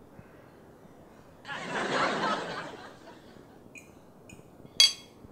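A breathy, unvoiced snicker lasting about a second and a half. It is followed by a few faint clinks and one sharp clink near the end: a metal fork against a ceramic plate.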